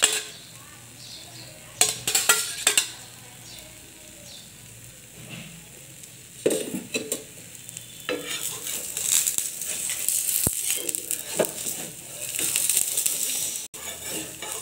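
Egg dosa frying on a hot dosa tawa, the oil just added around it sizzling, the sizzle growing louder from about eight seconds in. A few short knocks of a utensil come about two and six seconds in.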